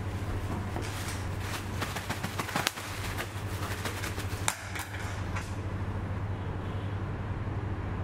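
A plastic bubble-wrap bag crinkling and crackling as a part is unwrapped from it. There are sharper crackles about two and a half and four and a half seconds in, over a steady low hum.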